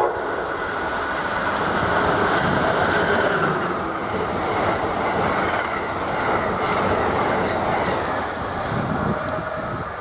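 Electric passenger train passing at speed: a loud, steady rush of wheels on rail that swells over the first two seconds, holds, and eases a little near the end.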